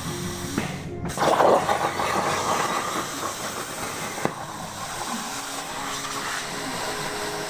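CNC machine running with a steady hissing, rushing noise, which swells into a louder rush about a second in and then settles back.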